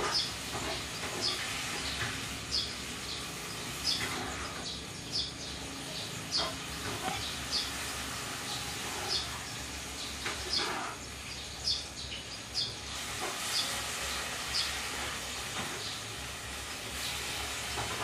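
Olive-backed sunbird giving short, high chirps, repeated about once a second, over a steady hiss.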